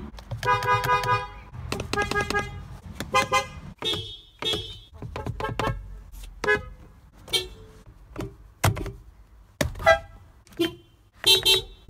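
Car horns sounding in a rapid string of short toots and longer honks. The pitch changes from blast to blast, as from several different horns.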